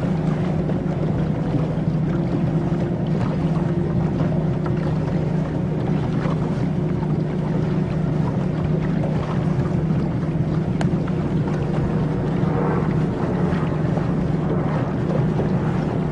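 Motorboat engine running steadily at cruising speed as a low, even drone, over a constant rush of water and wind.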